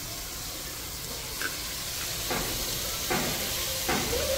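Chopped vegetables dropped into an aluminium pressure cooker of frying onion-tomato masala, landing with a few thuds over a steady sizzling hiss.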